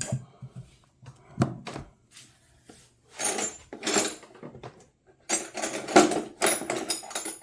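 Metal wrenches clinking and clattering against one another as they are handled and set on a magnetic wrench holder: a few single clicks, then two longer runs of rattling with a light metallic ring.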